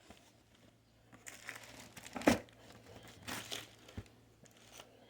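Packaging crinkling and rustling as a shoe is taken out of its box, with one sharp loud crackle a little over two seconds in and a short knock near the end.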